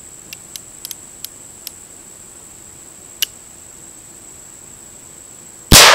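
A few small metallic clicks as the .44 cap-and-ball revolver is handled, a sharper click about three seconds in, then near the end a single loud shot from the revolver firing a 24-grain black powder charge, with a long fading echo.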